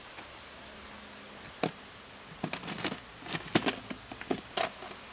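About ten sharp plastic clicks and knocks over roughly three seconds, starting about a second and a half in: the snap latches and lid of a plastic clip-lock food container being undone and lifted off.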